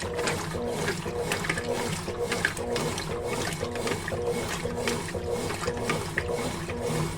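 Consul Facilite 11 kg (CWG11) washing machine agitating the wash: the motor hums in short, even strokes about twice a second as the agitation reverses, with water sloshing in the tub.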